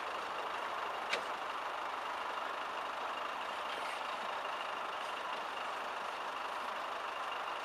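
Land Rover Discovery running steadily as it crawls away over rough ground, a steady engine and mechanical noise with no revving, and a brief click about a second in.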